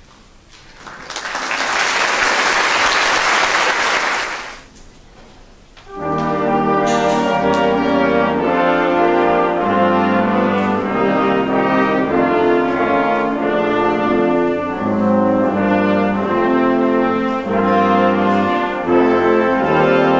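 A few seconds of audience applause, then after a short pause a symphony orchestra starts a piece led by its brass section: trumpets, trombones and horns playing full, held chords that change every second or so.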